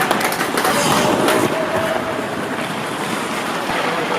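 Hockey skates scraping and carving on rink ice, with sharp clacks of sticks and pucks scattered through a steady rush of noise.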